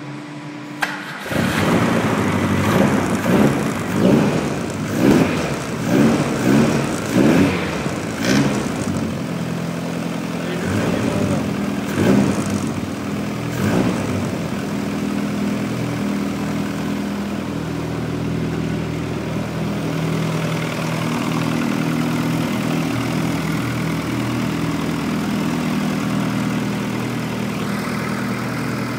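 Rebuilt, forged-internal turbocharged engine of an MG ZR Turbo cranking and firing at once on its first start after the rebuild. It rises and falls in pitch many times over the first dozen seconds, then settles into a steady idle.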